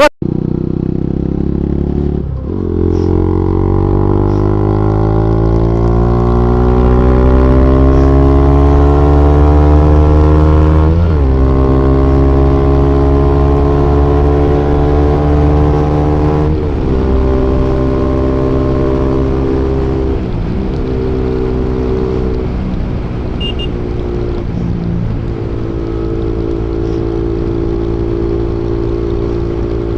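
Bajaj Pulsar NS200 single-cylinder engine through an Akrapovic aftermarket exhaust, pulling up through the gears. The pitch climbs steadily, drops at a gear change about eleven seconds in and again around sixteen seconds, then holds at a fairly steady cruise.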